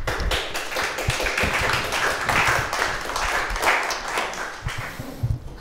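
A small audience applauding, the clapping thinning out near the end.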